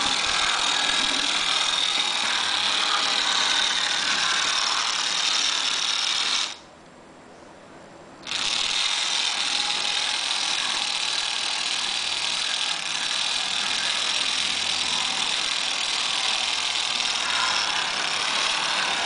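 Small electric motor and gearing of a Rivarossi model Edison tram running with a steady high whine on its first run after sitting unused since 1963. The sound cuts out for about two seconds a third of the way in, then resumes.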